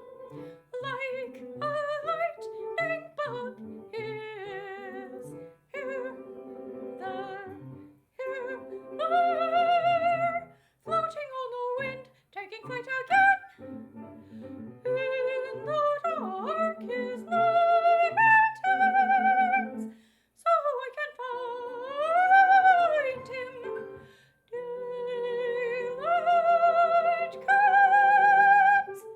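Soprano singing an operatic aria with a wide vibrato, in phrases broken by short pauses, over held notes of an instrumental accompaniment.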